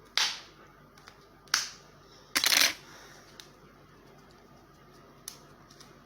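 Plumber's PTFE thread tape and its plastic packaging being handled: three sharp crackling rips, the third longer, followed by a few faint clicks.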